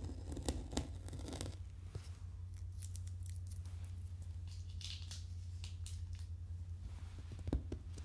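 Packing tape being picked at and peeled off the top of a cardboard box in quick short rips during the first second and a half, then a few faint scratches, and light fingertip taps on the cardboard near the end.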